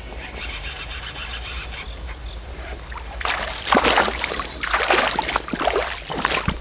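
Water splashing in irregular bursts from about three seconds in: a small hooked bass thrashing at the surface as it is reeled in through shallow water. Under it runs a steady high drone of crickets.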